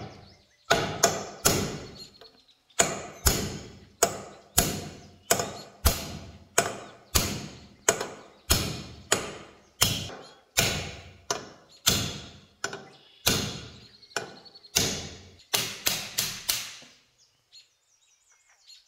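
Hammer blows on a steel punch, driving the rusted hinge pin out of a cast iron waffle iron: sharp metallic strikes, roughly two a second, each ringing briefly, with a quicker run of blows before they stop near the end.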